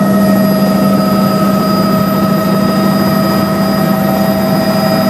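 Helicopter in steady cruise heard from inside the cabin: a loud, unchanging drone of engine and rotor noise with several steady whining tones running through it.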